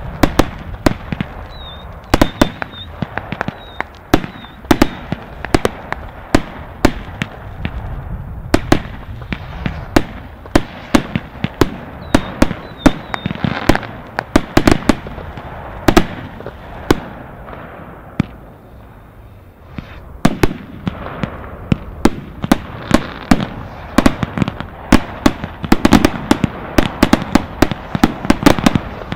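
Aerial fireworks going off in a dense, irregular string of sharp bangs and bursts, often several a second. There is a brief lull about two-thirds of the way through before the shots pick up again.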